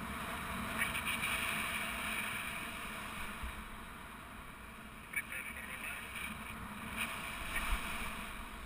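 Wind rushing over the microphone of a GoPro on a paraglider in flight during the descent to land: a steady hiss that swells and eases, with a few short knocks.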